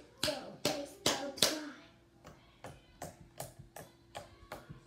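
Slime being slapped and squeezed between the hands: about four loud, sharp smacks in the first second and a half, then softer, quicker clicks.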